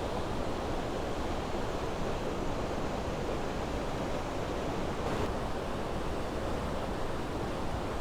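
Düden Waterfalls pouring with a strong flow: a steady, dense rush of falling water.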